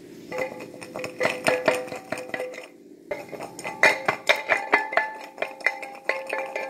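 Garlic cloves rattling and knocking inside a lidded glass jar shaken vigorously, the glass ringing with each hit; the shaking pauses briefly about three seconds in. The shaking knocks the papery skins loose from the cloves.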